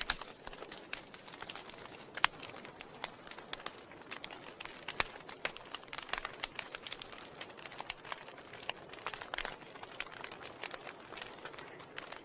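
Wood fire in a fireplace crackling: irregular sharp pops and snaps over a soft hiss, the loudest pop about two seconds in.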